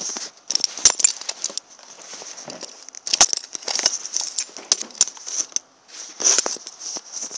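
Handling noise from a phone's microphone being rubbed and moved: irregular clicks, scrapes and crackles over a steady high hiss.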